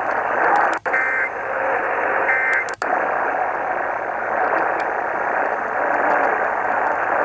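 Hiss of AM radio static, broken by two short bursts of Emergency Alert System data tones, the warbling end-of-message code that closes the test, about one and two and a half seconds in. Near each burst the signal briefly drops out.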